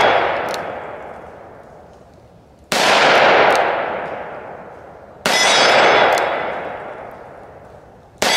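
Taurus 692 Tracker revolver firing .357 Magnum rounds in double action: three loud shots about two and a half seconds apart, each with a long ringing tail.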